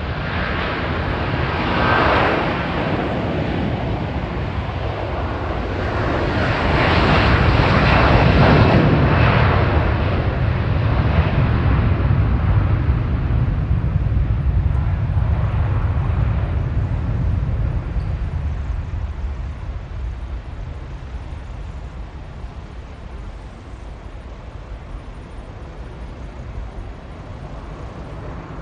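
Jet airliner's engines running as the plane passes: a steady rush that builds to its loudest about eight seconds in, then slowly fades away.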